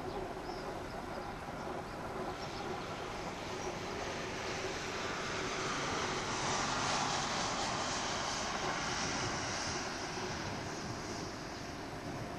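Jet engines of a Boeing 737-800 (CFM56-7B turbofans) running. The noise swells to a peak with a hiss about halfway through, then eases off again.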